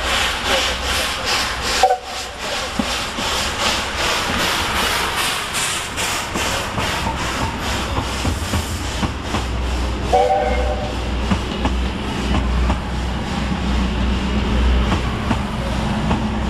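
JNR 8620-class steam locomotive working past at close range, its exhaust beating in an even, rhythmic chuff. About nine seconds in this gives way to the steady rumble of its passenger coaches rolling by on the rails. Brief whistle tones sound about two seconds in and again about ten seconds in.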